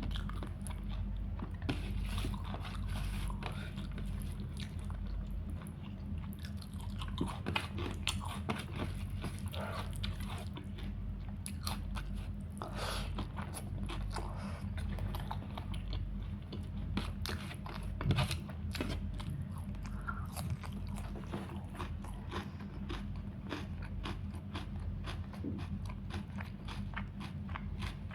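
A person chewing and biting food close to the microphone: a steady stream of small irregular crunches and mouth clicks. A steady low hum runs underneath.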